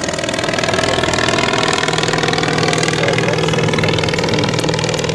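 English Electric Wren's small ABC flat-twin engine running in flight, a steady buzzing drone that settles to an even pitch about two seconds in.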